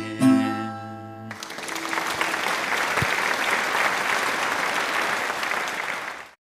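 Last notes of an acoustic guitar ring out, then applause for about five seconds that cuts off suddenly.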